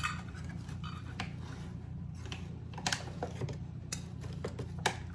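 Measuring cup scooping bread flour and tipping it into a bread-machine pan: scattered light taps, scrapes and clicks, over a low steady background hum.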